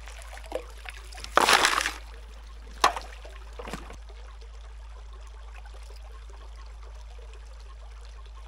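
Water trickling and sloshing as a gold pan is worked in creek water over a steady background of running water, with a short loud splash about a second and a half in and a sharp click near three seconds.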